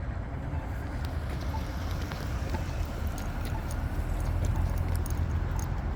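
Steady low rumble of city street traffic with wind on the microphone. Over it, a faint short tick about once a second from a Polara crosswalk push button's locator tone.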